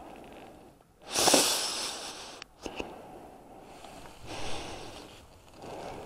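Skis sliding and turning through tracked-up snow: a loud swoosh of scraping, spraying snow about a second in, then softer swishes with the next turns and a sharp click near the middle.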